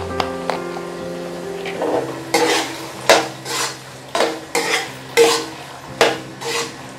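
Steel slotted spoon stirring chicken and tomato ketchup in a non-stick wok. The metal scrapes the pan in loud strokes about twice a second, starting about two seconds in, over a light sizzle of frying.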